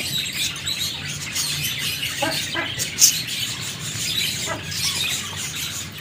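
Many small cage birds chirping and tweeting at once in a dense, steady twitter, with one sharp click about halfway through.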